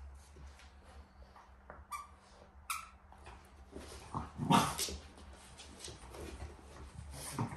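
Two French bulldogs playing over a plush toy, making short dog vocal sounds, with the loudest about four and a half seconds in.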